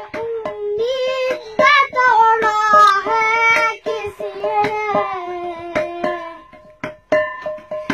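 A boy singing a song in long held notes while beating out a rhythm with his hand on a metal pot used as a drum. His voice breaks off briefly near the end while the taps carry on.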